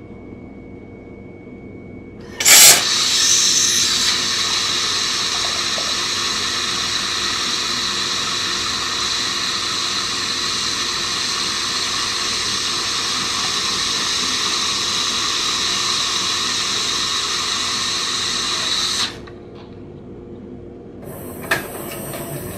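Jura Z10 super-automatic espresso machine running a cycle: a steady hissing rush starts suddenly with a brief loud burst and holds evenly for about sixteen seconds before cutting off abruptly. A single click follows near the end.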